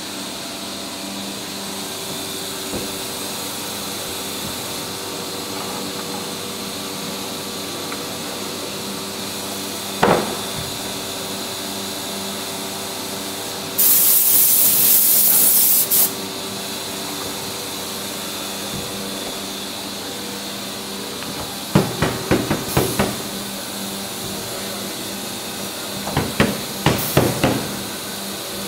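Steady hum of running shop machinery, with a single knock about ten seconds in and a loud hiss of compressed air for about two seconds around the middle. Near the end come two clusters of sharp wooden knocks and clatters as a particleboard panel is set down onto the CNC router's work-table pods.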